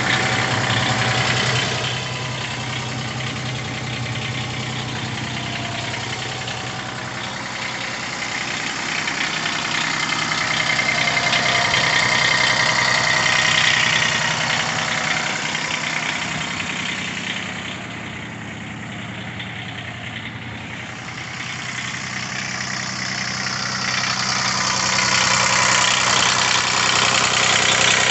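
Diesel engine of a Toro Workman 3300-D utility vehicle idling steadily, its level swelling and easing a few times.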